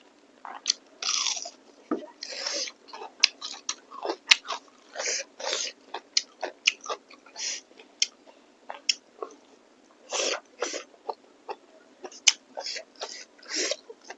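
A person eating: chewing and biting food, a dense, irregular run of short mouth clicks and smacks.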